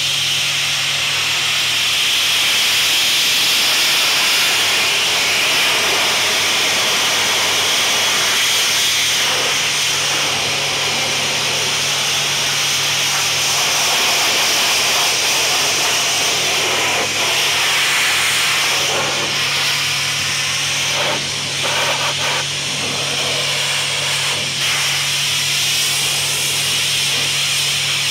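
Hot-water steam pressure washer jet spraying a stainless steel table, a loud steady hiss as it blasts thick grease off the metal. A steady low hum runs underneath.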